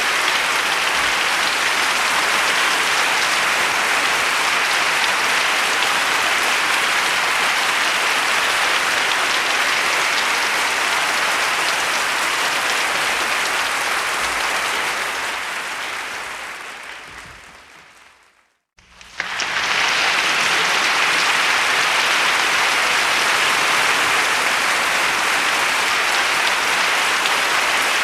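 Crowd applause, dense and steady, that fades out over a few seconds about two-thirds of the way through; after a moment of silence a second round of applause starts abruptly.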